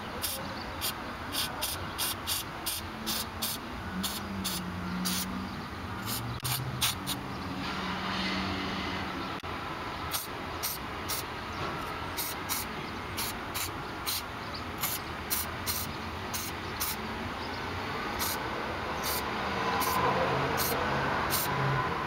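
Aerosol can of battery terminal protector spraying onto a car battery's positive terminal in many short hissing spurts, a few a second with pauses, leaving a red anti-corrosion coating.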